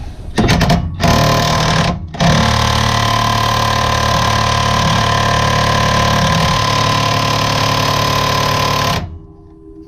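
DeWalt impact wrench hammering on a stubborn strut rod nut: two short bursts, then a steady run of about seven seconds that stops about nine seconds in. On setting 2 the nut does not break loose.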